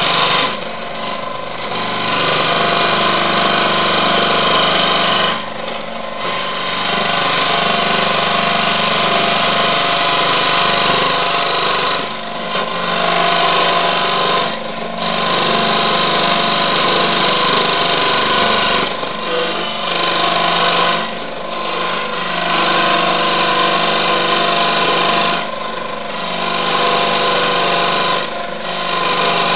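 Proxxon DSH scroll saw running, its blade cutting 2 mm aluminium sheet: a loud, steady mechanical noise with a high ring in it, dipping briefly several times as the cut eases.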